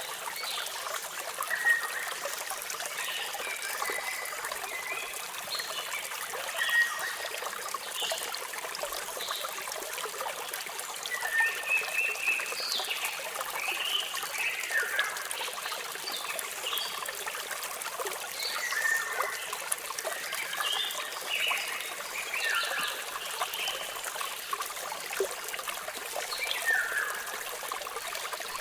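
Water falling and trickling in a steady rush, with birds chirping over it: many short, downward-gliding chirps repeating throughout.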